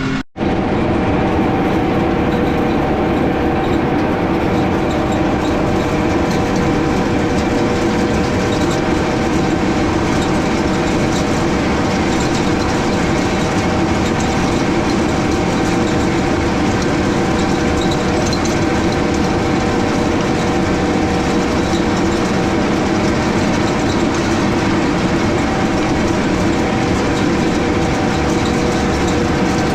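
Tractor engine running steadily at working speed while pulling a no-till interseeder, a constant mechanical drone with a few steady tones. The sound cuts out for a moment just after the start.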